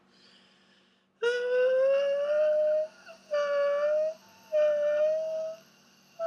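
A person's voice holding high wordless notes in a voice-feminization drill for finding the break between chest and head voice: three sustained hoot-like notes, the first gliding slightly upward, with short gaps and a fourth beginning at the very end.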